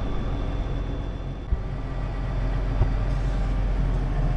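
Tractor engine running steadily, with two faint knocks about one and a half and nearly three seconds in.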